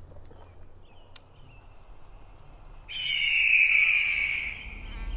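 A loud, high, whistle-like animal call starts abruptly about three seconds in and holds for about two seconds, sliding slightly down in pitch. Before it come a faint chirp and a single sharp click.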